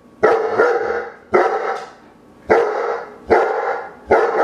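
German Shepherd barking repeatedly: five loud bursts of barks, roughly one a second.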